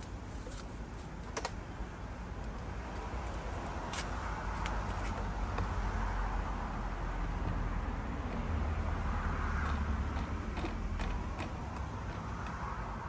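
Scattered light clicks and taps of a Yakima JayLow kayak carrier being fitted and clamped onto a roof-rack crossbar by hand, over a steady low rumble.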